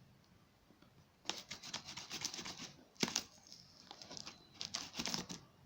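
Packaging being torn open and crinkled by hand: bouts of rustling and crackling with sharp clicks, and a sharp snap about three seconds in.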